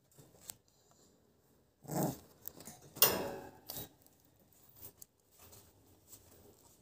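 Exotic American Bully puppy chewing and mouthing the wire bars of its crate: teeth and jaws clicking and rattling on metal, with louder knocks about two and three seconds in.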